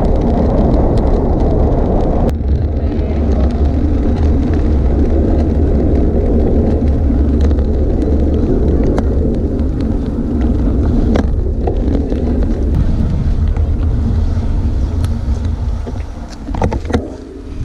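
Loud, steady wind and road rumble from riding a road bicycle, with a few faint clicks; it breaks up near the end.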